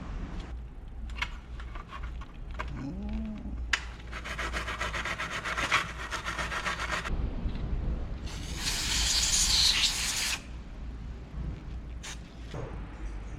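Workshop handwork on a part: about three seconds of rapid rubbing or scrubbing strokes, then a louder steady hiss lasting about two seconds, with a few light clicks.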